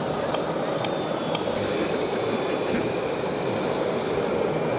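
Steady running noise of radio-controlled model trucks and construction machines on an indoor course, mixed with the even background din of a busy exhibition hall.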